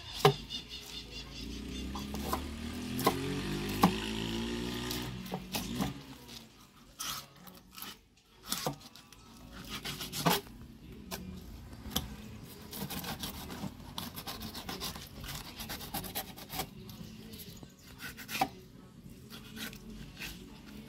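Knife scraping and slicing along a fish on a wooden board as it is filleted, with repeated short scrapes and sharp taps of the blade against the wood.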